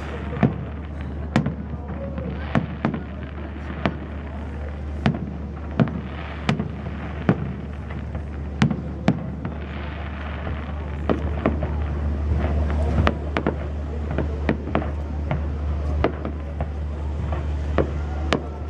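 Aerial fireworks shells bursting in sharp bangs at an irregular pace, about one or two a second, thicker with crackle about halfway through, over a steady low rumble.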